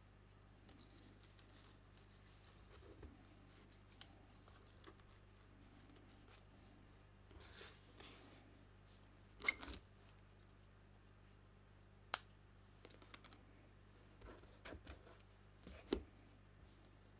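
Quiet handling of small paper die-cuts on a craft mat: soft paper rustles and a few sharp taps and clicks, the loudest about halfway through and near the end, over a faint steady low hum.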